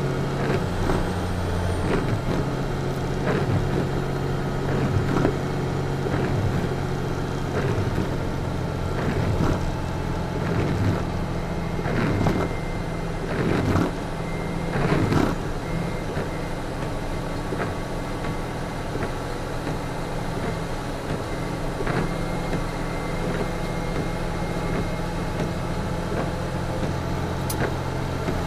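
Heavy truck's diesel engine held in third gear on a steep downhill under a full load, running at a steady pitch, heard from inside the cab. Knocks and rattles from the cab come through between about two and sixteen seconds in.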